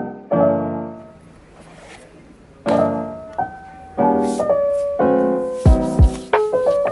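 Background piano music: a run of chords and single notes, each ringing out and fading, with a few deep low thumps near the end.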